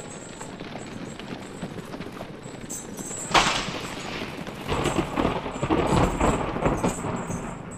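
Thunderstorm sound effects: a steady rain hiss, a sudden loud thunderclap about three seconds in, then a heavier low rumble.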